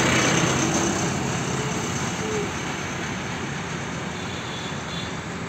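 Wind rushing over the microphone with road noise from a moving vehicle: a steady rushing noise that slowly gets quieter.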